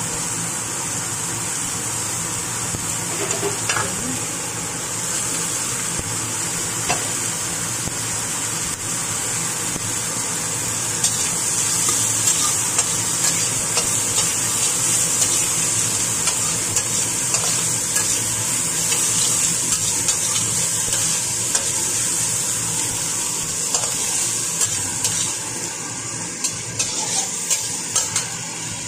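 Chopped onion, chili and carrot sizzling in a stainless steel wok with a steady high hiss, while a spatula stirs and scrapes them. Short clicks of the spatula on the metal are scattered through, and come thicker near the end.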